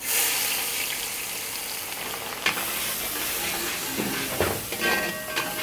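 Chopped onions dropped into hot peanut oil in a metal pan: a loud sizzle starts suddenly as they hit, and the oil keeps frying with a steady sizzle. A steel spatula scrapes and stirs them a few times, about halfway through and near the end.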